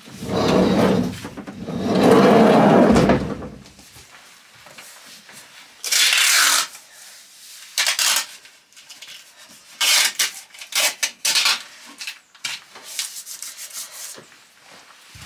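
Masking tape being pulled off the roll and rubbed down by hand along a van's floor panel. Two longer rustling handling noises come first, then a few short, sharp rasps of tape tearing off the roll, and softer rubbing near the end.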